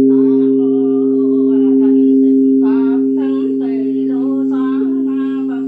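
A large Buddhist temple bell hums on steadily after being struck, its deep tones ringing under a voice that chants the bell-invocation verses, with a short pause in the chant about two seconds in.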